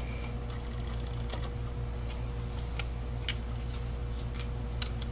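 Scattered light clicks and taps as a plastic doll and a thermometer probe are handled in a glass bowl of cold water. A steady low electrical hum runs underneath, and a faint short electronic beep sounds at the start.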